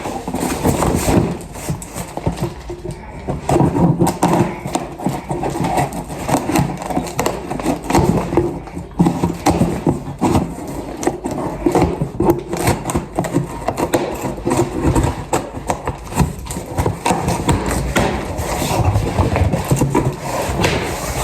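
A parcel being opened and its packaging handled: continuous irregular rustling and scraping, with many small crackles and knocks.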